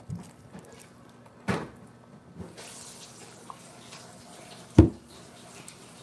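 Two dull thumps on the tabletop close to the microphone, about three seconds apart, the second louder, over a faint steady hiss.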